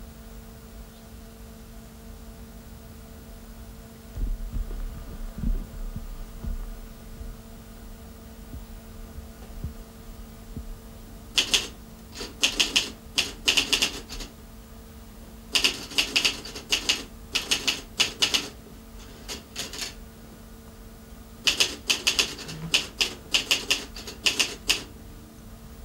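A typewriter being typed on: bursts of rapid key strikes, a few seconds each with short pauses, starting a little less than halfway in. A steady low hum runs underneath.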